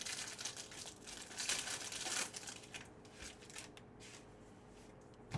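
Foil wrapper of a trading card pack crinkling and being torn open, with the cards being handled; the rustling is loudest in the first two seconds, then quieter.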